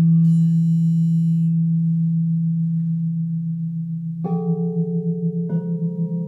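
Frosted quartz crystal singing bowls ringing: a deep, sustained tone, with a high shimmer fading in the first second or so. Two more bowls are struck with mallets about four and five and a half seconds in, adding higher ringing tones, and the deep tone then pulses steadily.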